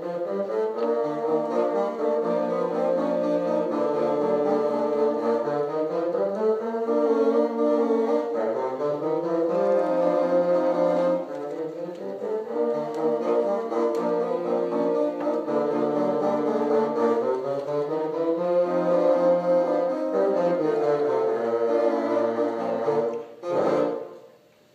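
A bassoon ensemble playing together in parts: a low bassoon line moving beneath sustained and shifting upper notes. The music stops about a second before the end, closing the piece.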